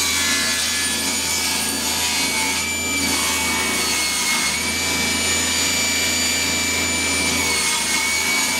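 Stationary woodworking machine running steadily as it cuts a block of oak, with a steady high whine over the cutting noise.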